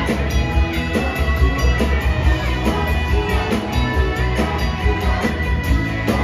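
Live rock band playing an instrumental passage with no singing: strummed acoustic guitars, electric guitar, bass and drum kit keeping a steady beat.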